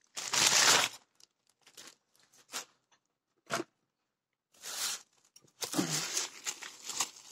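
Grey plastic mailer bag crinkling and rustling as it is handled, in several short bursts: the loudest is about a second long at the start, and the crinkling is busier near the end as the parcel is lifted.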